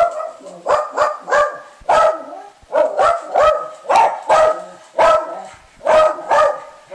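Small dog barking over and over, short loud barks mostly in quick pairs, about two a second.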